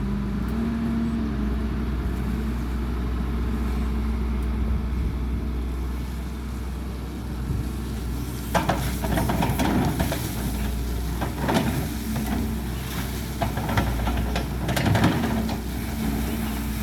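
Excavator engine running steadily with a constant hum. From about halfway in, irregular noisy bursts come and go over it.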